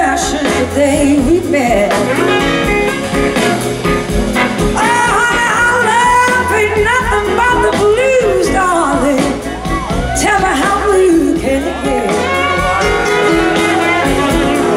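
Live blues band playing a slow blues: electric guitars over bass and drums, with a lead line that bends and glides between notes.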